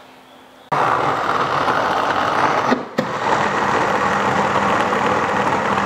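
Electric mini chopper, the kind started by pressing down on its lid, switching on about 0.7 s in and running steadily while it grinds a thick cocoa and coconut macaron mixture. It stops for an instant just before the 3-second mark, then runs on.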